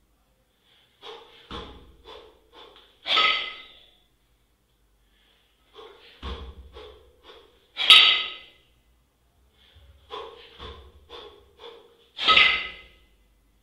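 Heavy, rhythmic breathing during double-kettlebell jerks: a forceful exhale about every four and a half seconds, three times, with shorter breaths between. A dull low thud comes before each loud exhale.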